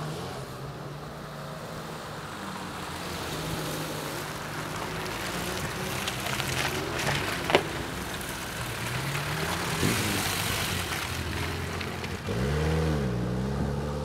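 Several off-road 4x4s (Suzuki Samurai, Opel Frontera, Lada Niva) drive past one after another, engines rising and falling in pitch as they pass. There is a sharp knock about halfway through, and near the end one engine revs up and back down.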